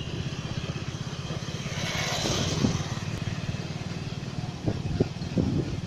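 Motorcycle engine running steadily on the move, a fast even low chug, with a brief rise in hiss about two seconds in.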